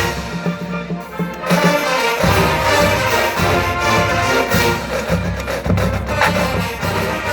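Marching band playing, brass over drums. The low brass and drums drop away briefly, then the full band comes back in about two seconds in.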